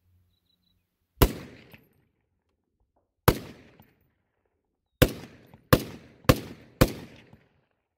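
Six semi-automatic rifle shots from a DSA Para FAL chambered in 7.62×51 mm: two single shots about two seconds apart, then four in quick succession about half a second apart, each ringing out briefly after the crack.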